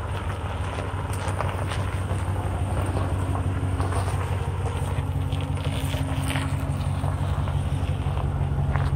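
2017 Ram 1500 Rebel pickup's engine idling steadily, its exhaust giving a low rumble that grows slightly louder.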